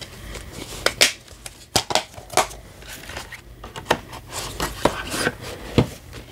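Hands handling a steelbook Blu-ray case: the disc pressed on its plastic hub, then the metal case turned and closed, giving a run of sharp clicks and taps.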